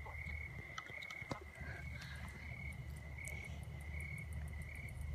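Insects chirping outdoors: a steady high-pitched note pulsing on and off at an even pace, roughly one or two pulses a second, over a low rumble and a few faint clicks.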